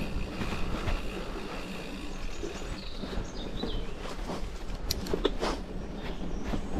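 Mountain bike rolling along a dirt forest trail: a steady rumble of tyres and wind, with a few sharp knocks and rattles from the bike about five seconds in. A bird chirps briefly about three seconds in.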